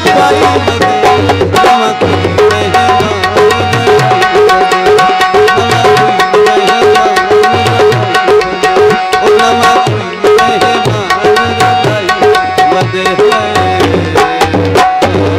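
Live folk music: hand drums, tabla-like, beat a quick, steady rhythm under a held melodic line, with no clear singing.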